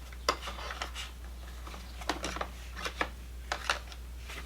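Scattered clicks and light knocks of small items being handled, about a dozen irregular taps, over a steady low hum.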